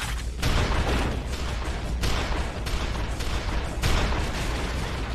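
Action sound effects from an anime soundtrack: a dense, rumbling roar broken by four sudden crashing hits.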